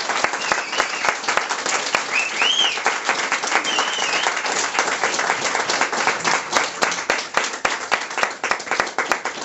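A room of guests applauding with dense, fast clapping, and a few short cheering calls over it in the first few seconds.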